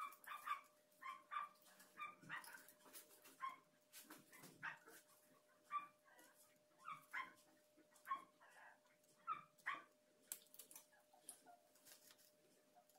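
A dog whimpering and yipping faintly in short, high calls every half second or so, which stop about ten seconds in. A faint steady hum runs underneath.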